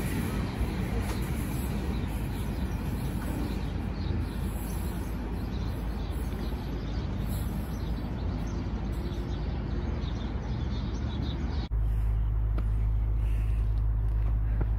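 Freight train of hopper wagons rolling away along the track, a steady rumble of wheels on rails. About twelve seconds in it cuts off suddenly and gives way to a steady low hum.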